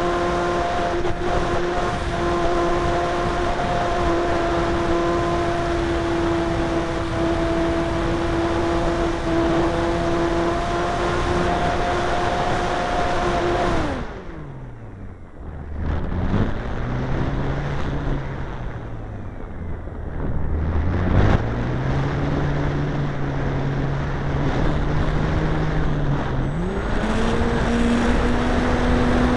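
A radio-controlled model airplane's motor and propeller heard from on board in flight, running at a steady high pitch. About halfway through the pitch drops sharply to a low hum as the throttle comes back, then rises again near the end. A steady hiss runs underneath.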